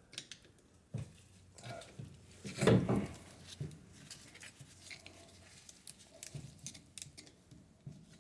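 Light metallic clicks and scrapes of brake parts being worked into place on the caliper bracket, with one louder knock about three seconds in.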